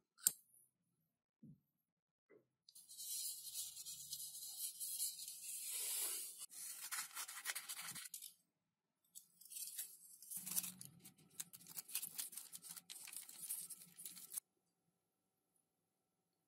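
Aluminium foil tape being handled and cut with scissors: two stretches of crinkling, tearing noise, the second broken into many short snips and rustles. A single sharp click comes right at the start.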